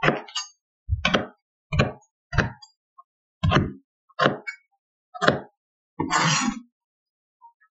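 Chef's knife chopping vegetables on a cutting board: about seven separate knocks of the blade on the board, roughly one a second, then a longer scraping sound near the end.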